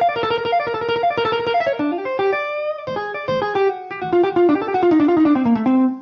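Electric guitar playing a fast single-note lick: a rapid stream of notes, a bent, wavering note about two seconds in, then a quick descending run that cuts off at the end.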